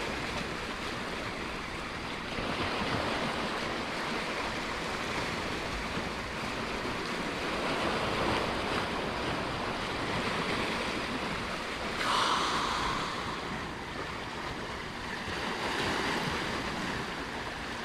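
Ocean surf washing in, swelling and easing every few seconds, with a sharper wave surge about twelve seconds in, and some wind on the microphone.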